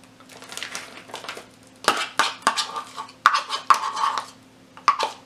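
Metal spoon scraping and clicking against a green plastic measuring cup and a glass mixing bowl while scooping thick mashed avocado: a few sharp clinks about two seconds in and near the end, with short scrapes in between.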